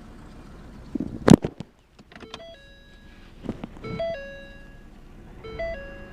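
Car idling low, then a single loud thump about a second in, followed by a 2013 Ford Fusion's electronic warning chime: a short three-note tone sounding three times, about every second and a half.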